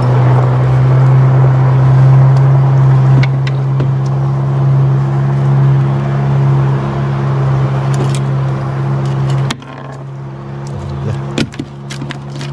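Small boat's engine running at a steady idle, a constant low hum that drops suddenly to a quieter level about nine and a half seconds in. A few sharp clicks follow near the end.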